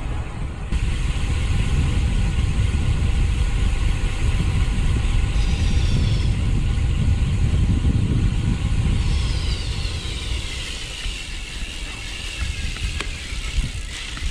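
Wind rushing and buffeting on the microphone of a moving bicycle, easing off over the last few seconds. A thin whine falls slowly in pitch through the second half.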